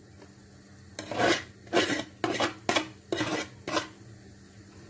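A cooking utensil scraping and stirring in a pan: a quiet start, then about six short scrapes from about a second in, stopping near the end.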